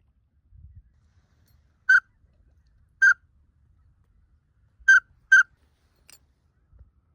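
Four short, loud whistled peeps from a duck whistle call, the first two about a second apart and the last two close together, with a fainter peep after them.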